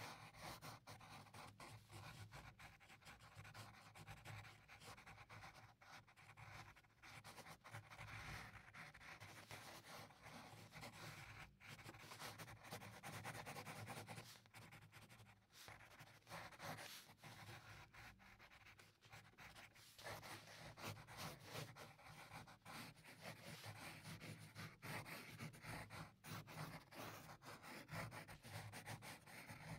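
Faint scratching of a graphite pencil on paper, made in many short, irregular sketching strokes.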